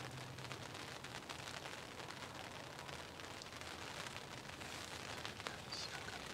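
Steady rain falling on a hunting ground blind: an even hiss with many small, irregular drop taps.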